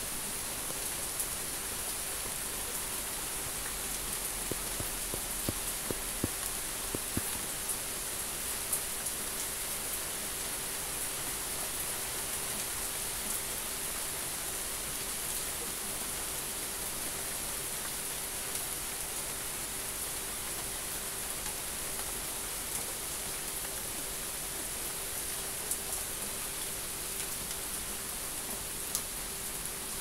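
Steady rain falling: a dense, even hiss with scattered louder drops ticking, most of them in the first several seconds, over a faint steady hum.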